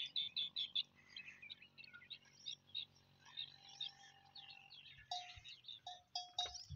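Faint birdsong: many small birds chirping, with a short mid-pitched call repeated several times in the second half.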